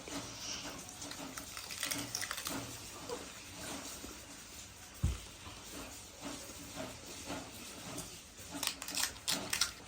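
Crisp golgappa (pani puri) shells crunching and being chewed, with wet mouth sounds from the filled water. A dull thump comes about five seconds in, and the crunching gets quicker and denser near the end.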